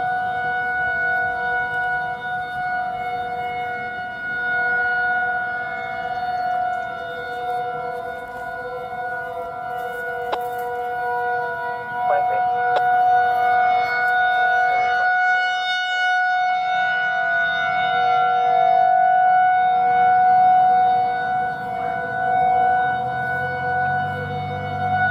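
Federal Signal 2001-130 rotating electromechanical outdoor warning siren sounding a steady tone at one pitch, the Alert signal of its monthly test. The tone slowly swells and fades in loudness.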